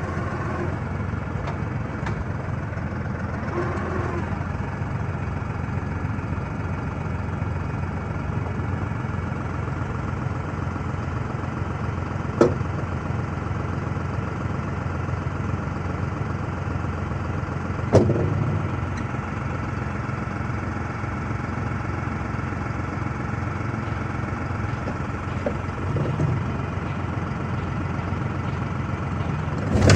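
Farm tractor engine running steadily, with two sharp knocks a little before and a little after the middle.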